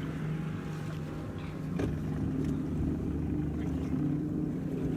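Outboard boat engine running steadily, a constant low hum.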